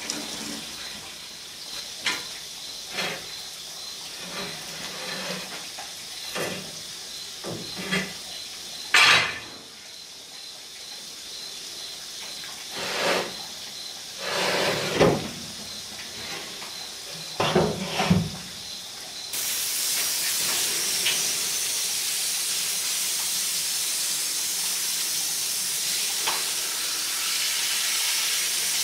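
Scattered metal clanks and knocks from inside a steel cabinet smoker as its grates and racks are handled. About two-thirds of the way through, a hose starts spraying water into the cooking chamber with a sudden, steady hiss that keeps on to the end.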